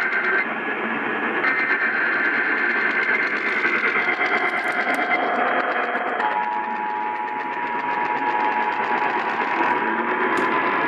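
Emergency Alert System test received over AM radio through heavy static. First the SAME header's screechy digital data bursts, two of them with a short gap, the second ending about five seconds in. Then from about six seconds the steady two-tone EAS attention signal, which comes before a monthly test message.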